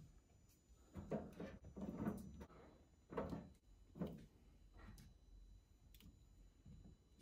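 Soft taps and light clatters of asparagus spears being set into a wire mesh air fryer basket with tongs: a handful of short knocks about a second apart, fading to fainter ones near the end.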